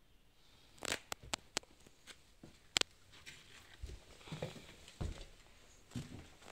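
Footsteps and light knocks: a string of irregular, sharp clicks and taps starting about a second in, as a person walks with a handheld phone.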